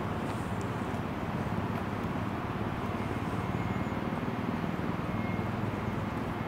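Steady low hum and rush from two stationary Alstom Citadis trams, their ventilation and auxiliary equipment running while they stand.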